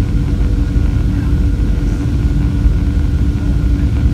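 Jet airliner's turbofan engines and airflow heard inside the cabin on approach: a steady, loud rumble with a steady hum tone running through it.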